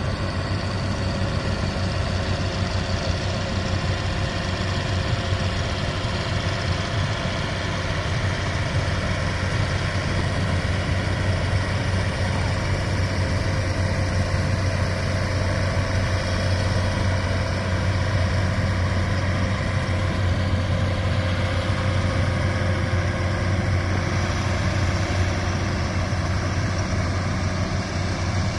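Engine of a river cargo ferry vessel running steadily under way: a continuous low hum over the churn of its propeller wash.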